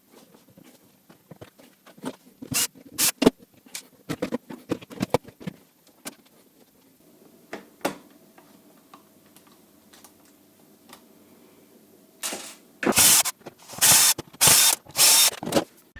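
Clicks, knocks and rattles of tools and dishwasher parts being handled while the machine is taken apart. Several loud, harsh noises come in quick succession near the end.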